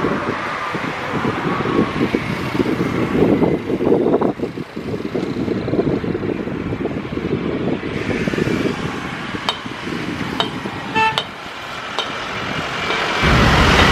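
Boeing 737 jet airliner taking off, its engines a steady, rough rumbling roar. A few short horn-like toots sound about ten seconds in, and a louder, deeper rumble starts abruptly near the end.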